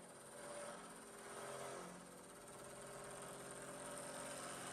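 Faint, steady mechanical hum of a machine running, with a few steady low tones that swell and ease slightly.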